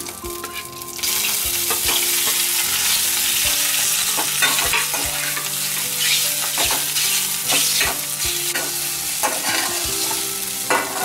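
Steamed rice-flour balls sizzling in hot seasoning oil with curry leaves and chillies, the sizzle rising sharply about a second in as they go into the pan. A perforated steel ladle stirs them, clinking and scraping against the metal pan.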